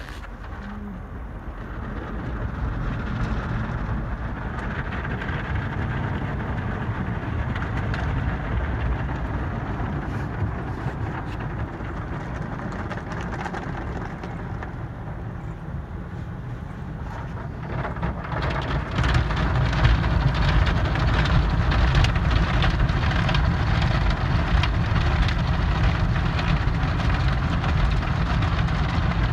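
Belanger in-bay car wash heard from inside the car: a steady hiss of water spraying onto the windshield and body. About eighteen seconds in it gets louder as the rotating brushes start scrubbing across the glass with a rapid patter.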